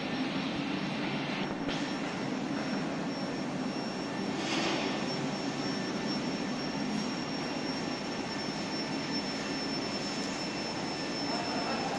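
Induction melting furnace running: a steady rushing noise with a thin, high-pitched whine.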